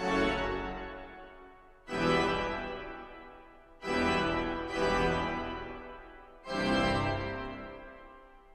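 Pipe organ playing a slow sequence of full chords, five in all, each struck and then released to die away in a long reverberation before the next.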